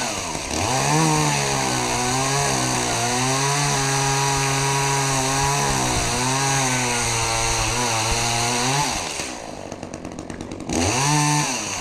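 Chainsaw running at full throttle for about nine seconds, its pitch dipping now and then as it works under load through wood, then dropping back to idle; near the end it is revved up once more briefly.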